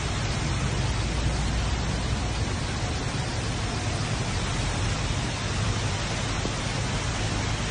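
Steady rushing noise of rain-fed waterfalls pouring off sandstone cliffs onto a flooded desert floor, with a deep rumble underneath.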